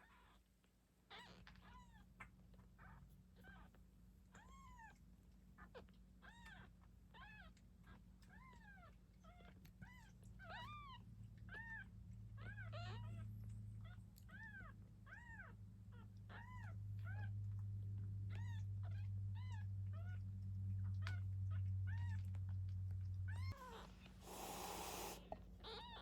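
Nine-day-old kittens mewing over and over, short high rising-and-falling mews about one or two a second. A low steady hum runs under the middle part and cuts off suddenly, and there is a brief rustle near the end.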